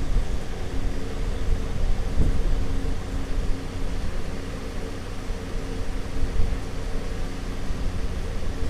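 A steady machine-like hum with a low rumble underneath.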